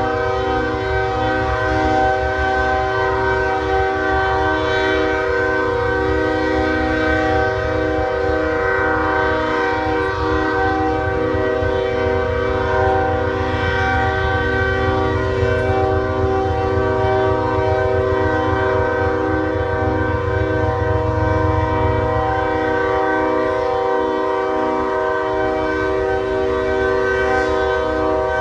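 Train horn held in one continuous, unbroken blast, a steady chord of several tones, over a low rumble.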